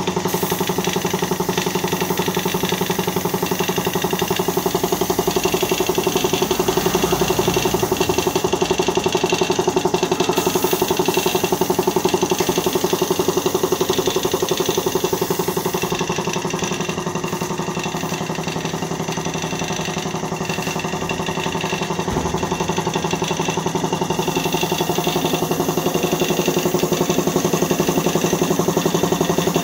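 Air compressor motor running steadily, a continuous machine hum with a hiss over it, feeding the spray-painting gun. It eases off slightly for a few seconds past the middle.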